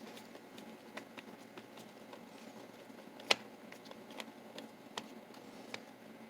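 Light clicks and taps of metal parts as a mortise lock body is handled and worked open, with one sharper click about three seconds in.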